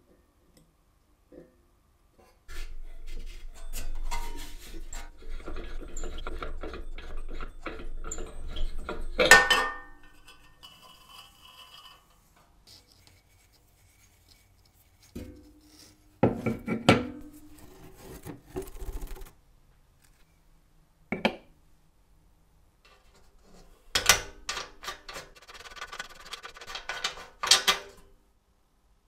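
Metal parts of a 1938 Tito Landi gasoline cooking stove being scraped, rubbed and clinked with hand tools as it is taken apart. A long stretch of scraping with a low rumble ends in a sharp clank, followed by separate bursts of clatter, a single click and more scraping.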